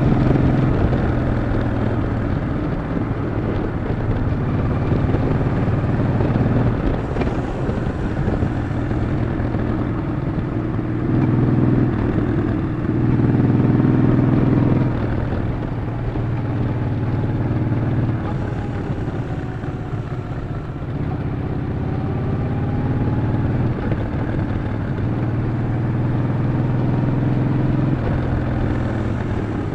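Yamaha XV950 (Bolt) air-cooled V-twin running steadily under way, with road and wind noise. It gets louder for a few seconds around the middle, then settles back.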